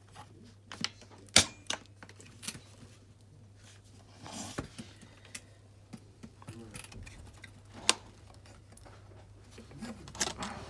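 Scattered plastic clicks and knocks from a Dyson vacuum cleaner being handled while switched off, with a sharp click about a second and a half in, another near eight seconds, and a short rustle in between.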